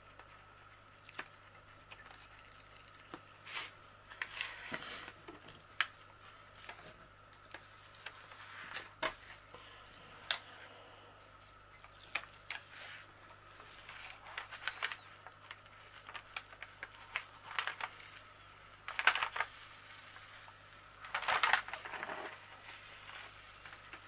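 Plastic release film on a diamond painting canvas crinkling and rustling in irregular bursts as it is peeled back by hand, with scattered small clicks and taps from handling.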